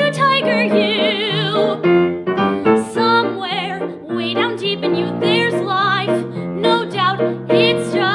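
A young woman singing a musical-theatre song with piano accompaniment, holding notes with a wide vibrato.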